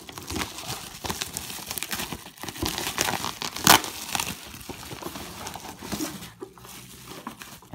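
Packing material, plastic bubble wrap and crumpled paper, crinkling and rustling as it is handled and pulled out of a cardboard box, with one sharper, louder crackle a little before the middle.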